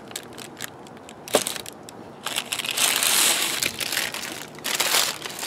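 Parchment paper crinkling and rustling as it is handled and pulled away from a freshly baked round of cornbread, thickest from about two seconds in until near the end.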